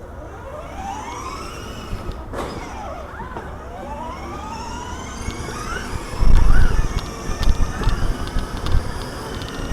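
Electronic vehicle siren sweeping up and down in pitch, several overlapping wails, over road noise. From a little past halfway there are loud low rumbling thuds.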